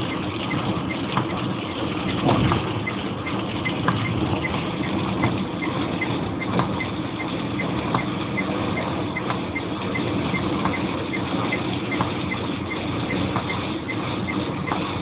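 Car cabin noise while driving in rain: steady engine and road noise with a constant patter. A light tick comes about twice a second, and a faint stroke comes roughly every second and a half.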